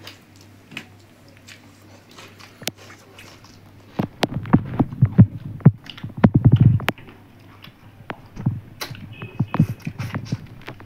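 Close-miked eating sounds: chewing and the clicks of fingers working rice and curry on steel plates. They come in a dense run starting about four seconds in, and again near the end, over a faint steady hum.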